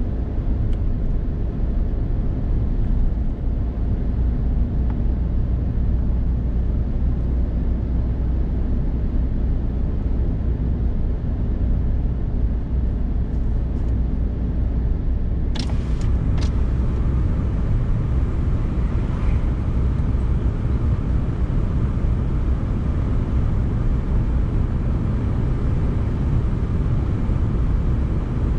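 A Suzuki Hustler being driven at steady road speed, a constant low rumble of engine and tyre noise heard from inside the cabin. A couple of short sharp clicks come about halfway through.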